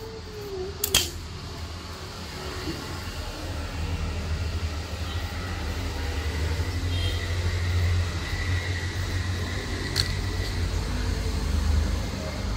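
A steady low hum, with two sharp knocks from wooden boards being handled and set in place, one about a second in and one near the end.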